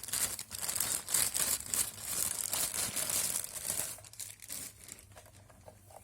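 Plastic packaging crinkling and rustling as it is handled and pulled open, dense for about four seconds and then dying away.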